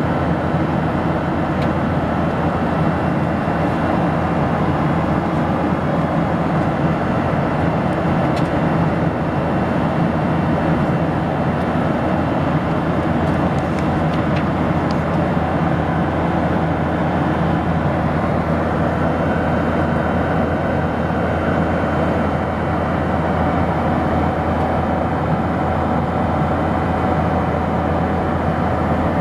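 Steady, unchanging roar inside the cabin of a Boeing 737-800 airliner: its CFM56-7B turbofans and the airflow over the fuselage, with a low hum and no change in pitch or level. A few faint ticks sound briefly in the middle.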